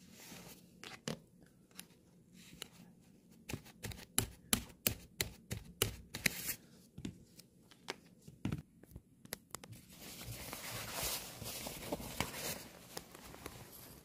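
Hands working a metal snap button on a glossy nylon padded jacket: a quick run of sharp clicks and taps, then a few seconds of nylon fabric rustling and crinkling.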